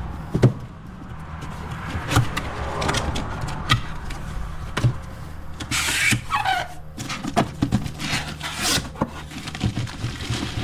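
Cardboard box being opened and its contents handled: irregular knocks and clicks, with a burst of rustling packaging about six seconds in. A steady low engine hum runs underneath.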